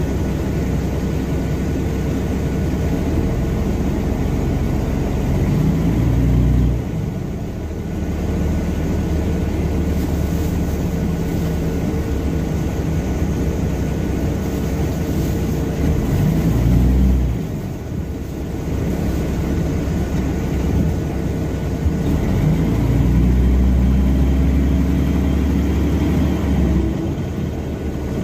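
Mercedes-Benz O305 city bus's OM707 diesel engine heard from inside the cabin, pulling the bus along with its note rising as it accelerates. The note falls off abruptly twice as the Voith automatic gearbox shifts up. It then pulls up again before easing off near the end.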